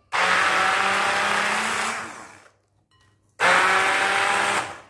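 Hand blender running in two bursts, about two seconds and then just over a second, with a short pause between, blending boiled whole masoor lentils and a banana into a paste.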